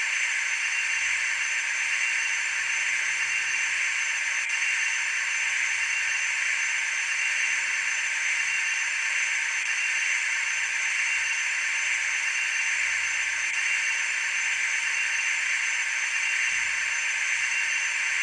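CNC vertical machining centre running: a steady hiss with a faint high whine over it, unchanging throughout.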